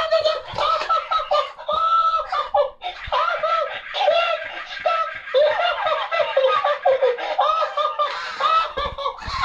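Tickle Me Elmo plush toy laughing and chattering in its high-pitched recorded voice through its small built-in speaker, a thin sound with no bass, with a few low thumps mixed in.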